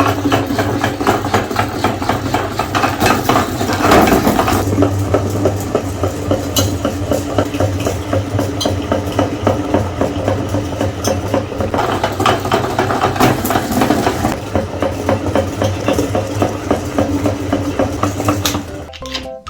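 Electric meat grinder running steadily, its motor humming with a fast rattle as it grinds chocolate candy bars. Music with organ-like notes takes over just before the end.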